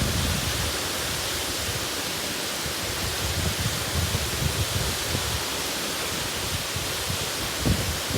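Sera Ella waterfall pouring steadily: a continuous even rush of falling water, with uneven low rumbles underneath.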